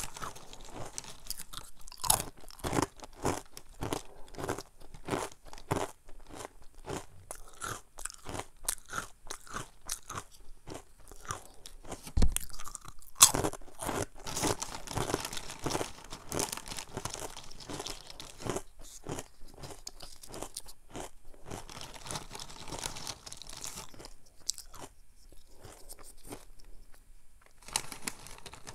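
Crunching and chewing of crunchy churro-flavoured Jjanggu snack rings, close to a clip-on microphone, as a run of irregular sharp crunches. Two louder knocks come about twelve and thirteen seconds in, and the crunching thins out for a few seconds near the end.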